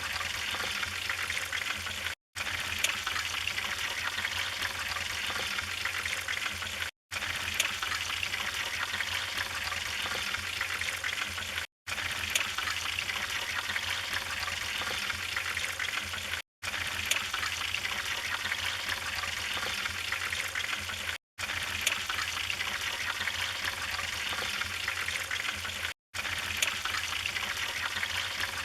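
Wood fire in a fireplace burning with a steady hiss and scattered sharp crackles and pops. The sound cuts out for a split second about every five seconds.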